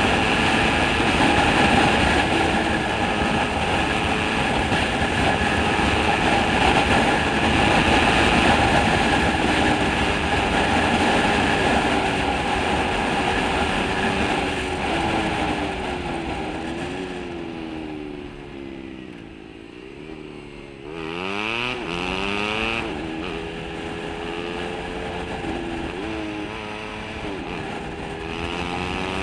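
Small motor scooter on the move: a loud rush of wind over the helmet-mounted camera with the engine running underneath. About two-thirds of the way through the wind dies down and the engine note falls as the scooter slows, then rises sharply as it speeds up again.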